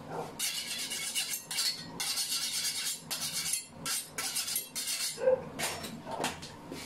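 Kitchen knife being sharpened: a run of short rasping strokes, about two a second, with a few short pauses.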